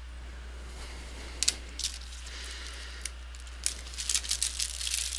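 A few faint clicks. Then, from about three and a half seconds in, a clear plastic bag crinkling and crackling as it is handled, over a steady low hum.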